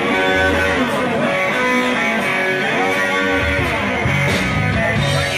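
Guitar-led music, playing steadily.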